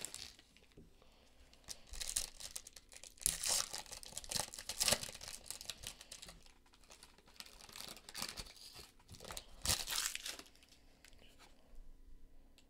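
A foil trading-card pack being torn open, the foil wrapper crinkling in irregular bursts from about two seconds in until about ten seconds in.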